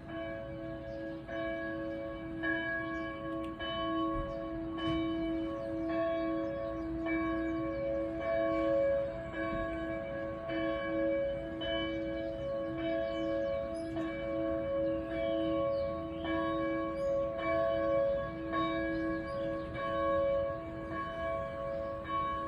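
Church bell ringing, struck at an even pace a little over a second apart, each stroke's ringing carrying on into the next.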